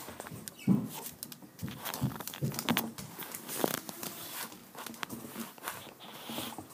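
Pet rabbit moving about its wire cage: irregular light taps, clicks and rustling.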